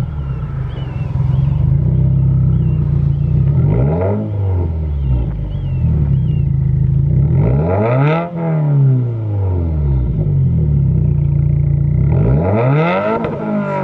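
2015+ Subaru WRX's turbocharged flat-four idling through a Nameless Muffler Release 3-inch catback exhaust, revved three times: a short blip about four seconds in, a sharper one about eight seconds in, and a longer rev near the end, each rising and falling back to idle. Faint bird chirps are heard early on.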